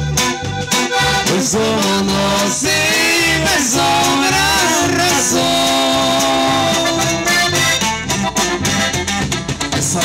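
Norteño band playing live: button accordion carrying the melody over electric bass, guitar and drum kit.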